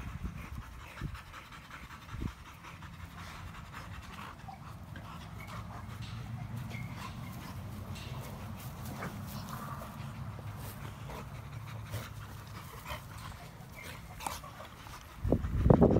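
American bully dogs panting hard while they play-wrestle on grass, with a loud, short vocal burst near the end.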